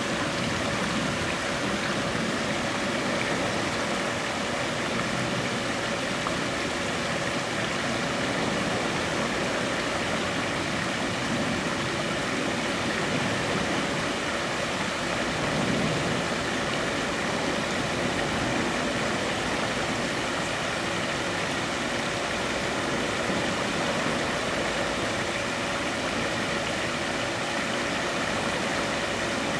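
A steady wash of noise with a constant low hum running under it, unchanging throughout.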